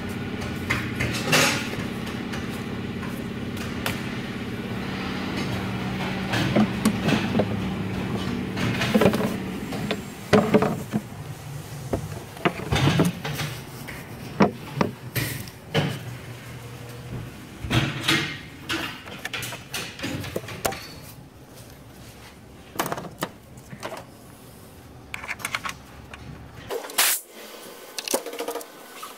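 Scattered clicks, knocks and light rattles of hands working hoses, plastic clips and wiring connectors in a truck engine bay, with a steady low hum behind them, loudest in the first third.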